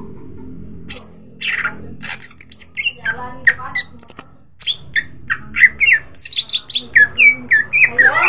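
Male greater green leafbird (cucak ijo) singing energetically. After about a second with only a low hum, it gives a string of varied chirps and whistles, then, past the middle, a fast run of short notes that slide downward. A steady low hum lies underneath.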